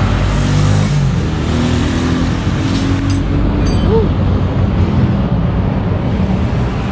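Road traffic with motor vehicle engines running. In the first two seconds one engine rises in pitch as it accelerates.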